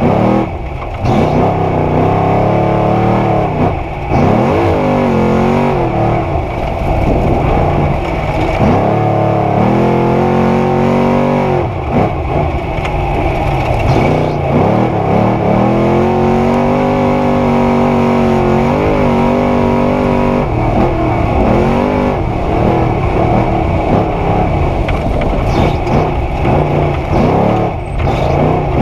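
Trophy Truck's 900-horsepower racing engine heard from inside the cab at full race pace. The revs climb in long pulls and fall back again and again through gear changes and lifts off the throttle.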